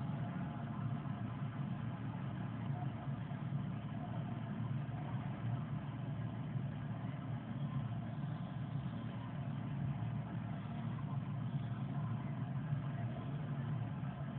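A steady low hum that holds level throughout, with no distinct events.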